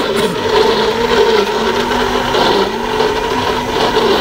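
Electric blender running steadily, blending a fruit smoothie, its motor pitch wavering slightly.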